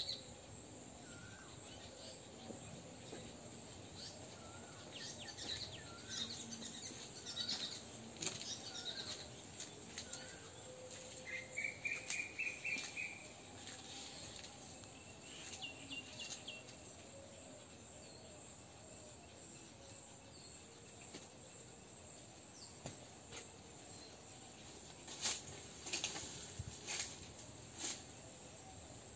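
Outdoor ambience of birds and insects: repeated short chirps, a brief rising trill about twelve seconds in, and a few sharp clicks near the end.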